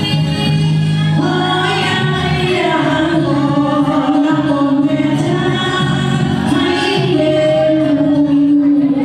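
A woman singing a song over instrumental accompaniment, holding long notes.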